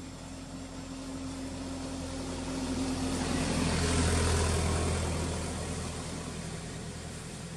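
A motor vehicle passing by: a steady engine hum that swells to its loudest about halfway through and then fades.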